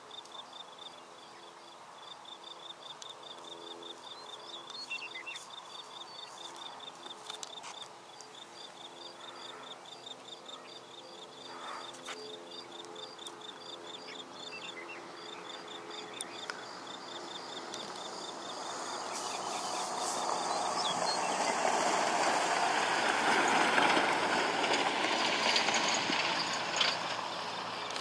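An insect trills steadily, a high, fast pulsing, over a faint low hum, until about three-quarters of the way through. Then a broad rushing noise swells, loudest near the end, and eases off.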